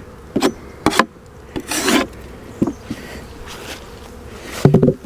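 Wooden beehive boxes being handled, with several sharp wooden knocks, a short scrape and a louder clatter near the end, over the steady buzzing of honeybees.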